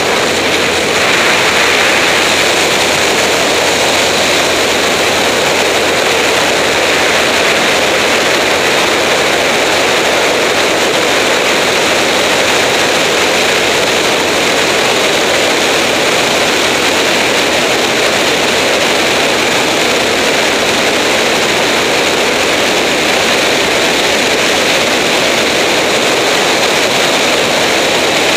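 Light aircraft in flight: a loud, steady rush of wind and engine noise that does not change.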